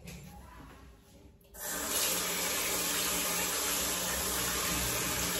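Bathroom sink tap turned on about a second and a half in, water running steadily into the basin while the safety razor is rinsed.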